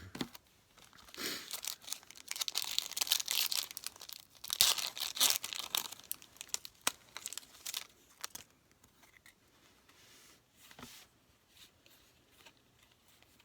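Foil booster pack wrapper being torn open and crinkled, a dense crackling with sharp crackles, loudest around three and five seconds in; after about eight seconds only a few faint clicks and rustles remain.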